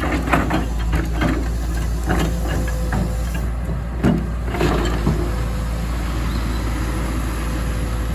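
Excavator's diesel engine running steadily, with a run of irregular knocks and clatters over the first five seconds, then an even drone.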